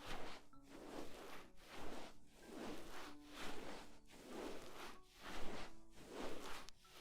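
Ear-cleaning ASMR: an ear pick scraping and rubbing inside a binaural microphone's ear, in repeated strokes about once a second.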